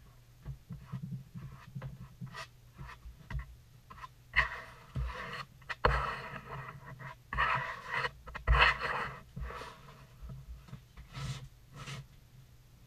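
Close-by work noises of a floor tile installation: scattered knocks and clicks, with several louder rough scrapes about a third to two thirds of the way in.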